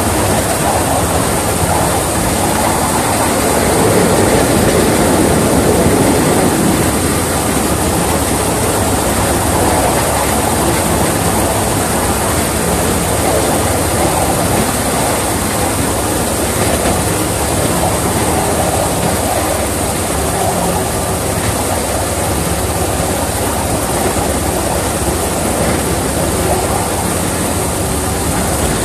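Miniature railway Class 31 replica locomotive running along the track, a steady mix of engine and wheel-on-rail noise heard from the cab.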